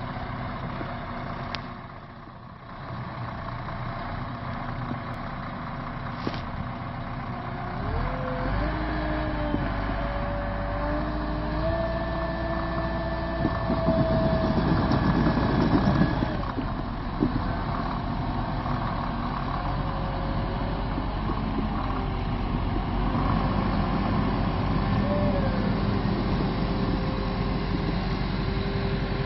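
Heavy diesel engines of a wheel loader and a snowbound semi-truck running, revving up about eight seconds in and working hardest a little before halfway as the loader tows the truck through deep snow, then settling to a steady pull.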